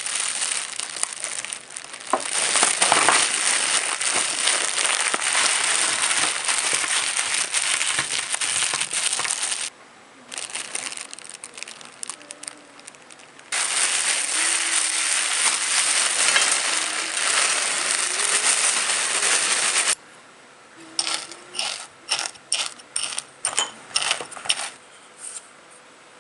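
Oreo cookies being crushed by hand inside a plastic bag: dense crinkling of the plastic and crunching of the biscuits in two long stretches with a quieter pause between. Near the end comes a run of separate sharp clicks and taps.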